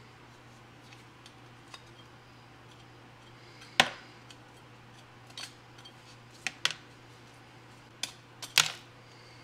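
Flat metal scraper blade chipping hardened crust and rust off an antique cap gun: a series of short, sharp scrapes and cracks, the loudest about four seconds in.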